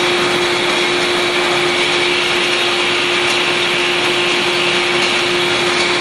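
72-head rotary glass bottle washing machine running steadily: an even mechanical whir with a constant hum, mixed with the hiss of water jets spraying the bottles.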